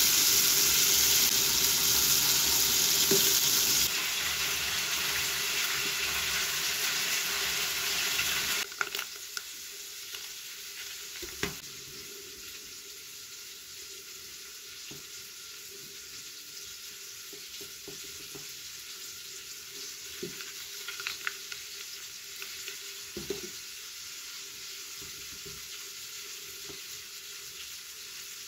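Deer meat frying in hot oil, a loud steady sizzle that steps down a little about four seconds in. It stops abruptly after about nine seconds, leaving a quiet background with soft scattered taps and scrapes of a spoon spreading sauce on bread slices.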